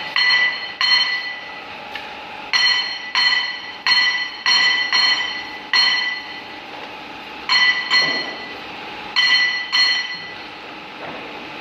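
Metal being struck: about a dozen sharp, ringing clinks, often in pairs, each ringing on briefly, over a steady machine hum.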